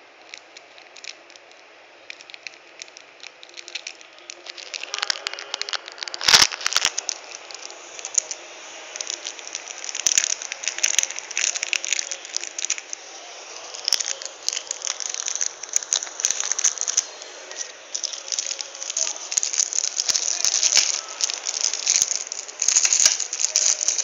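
Clear plastic packaging bag crinkling while the stainless steel chain bracelet inside rattles as they are handled: a dense run of crackles and clicks that starts about four seconds in, with one sharp knock about six seconds in.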